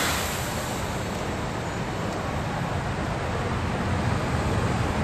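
Steady rushing noise of a thunderstorm over a city street, with a low rumble growing near the end.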